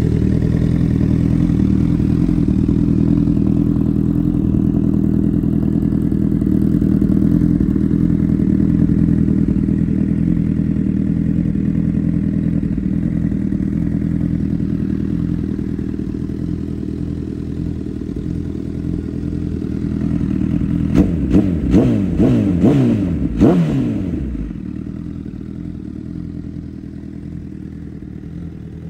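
Honda CBR1000RR Fireblade's inline-four engine idling steadily through an Arrow aftermarket silencer. Near the end it is blipped about five times in quick succession, the revs rising and falling sharply, then it settles back to a quieter idle.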